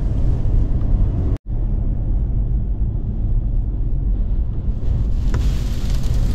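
Steady low road and engine rumble heard inside a moving car's cabin. It cuts out for an instant about a second and a half in, and near the end a hiss of gusting wind builds as blowing dust sweeps across the road.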